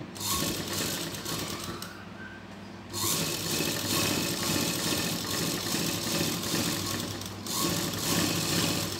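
Sewing machine running as a fabric strip is stitched onto a blouse piece. It runs for about two seconds, eases off briefly, then runs louder and steadier from about three seconds in.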